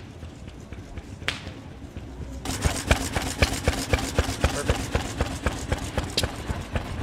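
Quiet outdoor background with a few clicks. About two and a half seconds in, a vintage stationary engine starts to be heard running: a steady chuffing at about four beats a second over a low hum.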